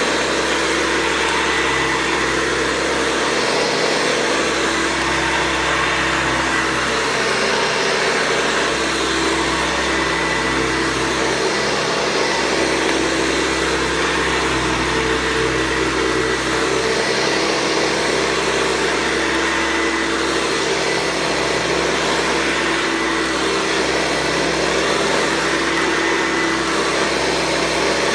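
Hoover Convertible 707 upright vacuum cleaner running steadily, its motor and metal fan giving a constant hum and whine. The sound swells and eases slightly every few seconds.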